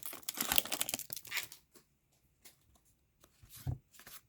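Hockey card pack wrapper crinkling and tearing as a pack is opened, for about the first second and a half, then a few faint clicks of cards being handled.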